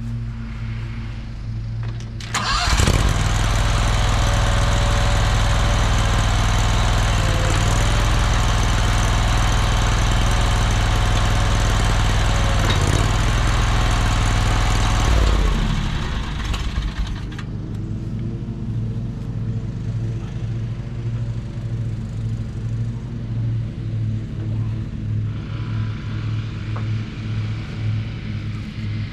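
Mini skid steer's engine idling, then about two seconds in it speeds up and runs much louder for about thirteen seconds, its pitch dipping briefly twice. It then drops back to a lower idle with an even throb.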